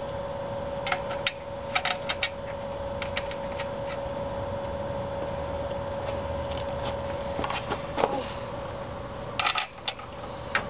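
Scattered sharp metallic clicks and clinks of a socket wrench and clutch pressure-plate bolts being handled against a flywheel, over a steady faint hum.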